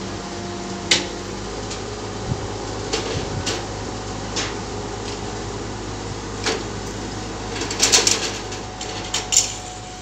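Truck-mounted crane's engine running steadily under the lifting work, with scattered sharp metallic knocks and clanks, a quick cluster of them about eight seconds in.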